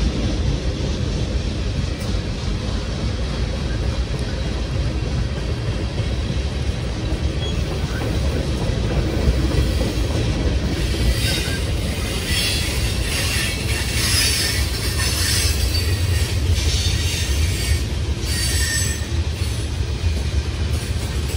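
A train's cars rolling past with a steady low rumble. From about halfway through, the wheels squeal in repeated short high-pitched bursts.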